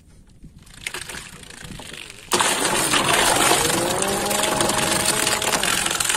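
A loud hiss starts suddenly about two seconds in. Over it, a motor's whine rises, holds steady for a couple of seconds and then falls away.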